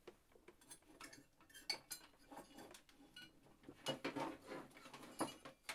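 Faint, irregular clinking and rattling of soldering-station gear and small metal objects being rummaged through and shifted about, busiest about halfway through and near the end.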